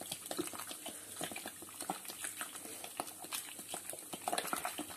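Carbonated tan, a salted fermented-milk drink, poured from a plastic bottle into a steel pot of chopped vegetables, with a steady run of small fizzing crackles and splashes.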